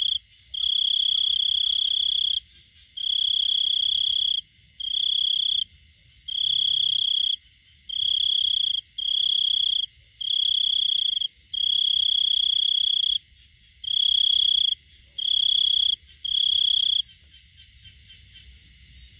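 Male cricket's calling song, the song a male makes to attract a female: loud, high trills on one pitch in bouts of about one to two seconds with short pauses between. The trilling stops a couple of seconds before the end, leaving only faint rapid ticking.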